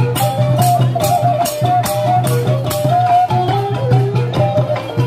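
Khmer chhayam music: long chhayam drums beaten in a steady rhythm, about two strokes a second, under a stepping melody and a steady low drone.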